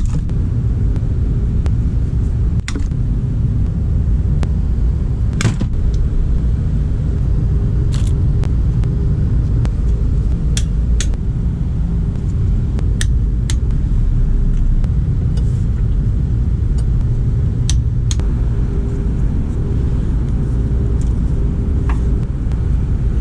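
Subaru WRX's flat-four engine running steadily: a continuous low rumble with a faint steady hum above it and scattered sharp clicks.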